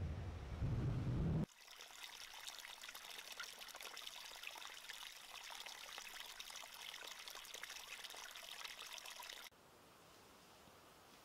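A low wind rumble on the microphone for the first second and a half, then a small woodland stream trickling over stones, which cuts off suddenly about nine and a half seconds in to faint, quiet forest air.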